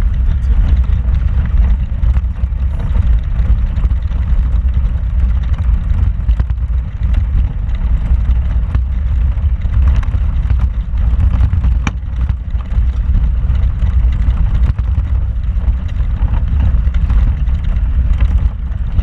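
Vehicle driving slowly over a rocky off-road trail, heard from inside the cab: a steady low rumble of engine and jostling over stones, with scattered knocks and rattles.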